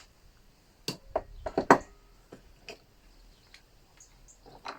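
Sharp metallic clicks and taps of a spanner working at a seized exhaust nut on a small two-stroke leaf blower: a quick cluster of clicks about a second in, the loudest just before two seconds, then a few faint ticks.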